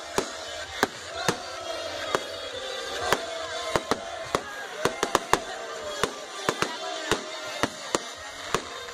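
Fireworks going off in a rapid, irregular string of sharp bangs, sometimes several in quick succession.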